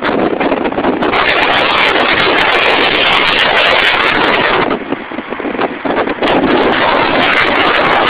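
Loud, steady rushing of wind buffeting the microphone, with crackles, easing for a moment a little past the middle before rising again.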